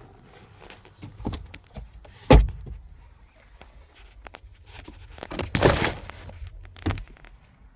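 Handling noises in a car: a few knocks, a sharp thump about two seconds in, and a rustling scrape a little past halfway, then another knock.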